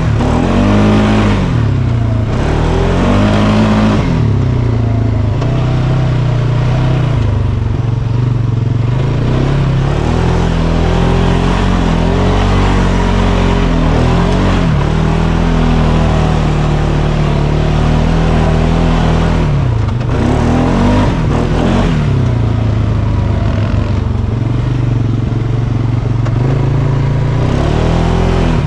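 2023 Polaris Sportsman 570's single-cylinder 567cc four-stroke engine pulling the ATV over a dirt track at around 4,600–5,000 rpm. The revs drop and climb again several times as the throttle is eased off and opened.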